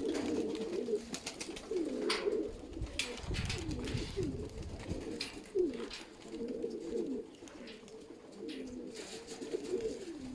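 Sickle-winged domestic pigeons cooing, several phrases overlapping one after another, with a few sharp clicks among them.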